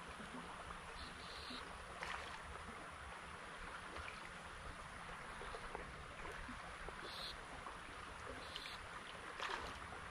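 Faint, steady rush of creek water, with a few brief sharp sounds, about two seconds in and again near the end.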